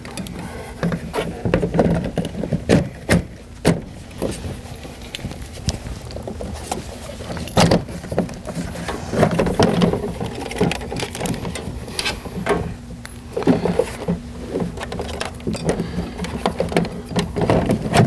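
Irregular clicks and knocks of hard plastic being handled as the SMART Board pen tray is slid back into place and fiddled with, over a faint steady low hum.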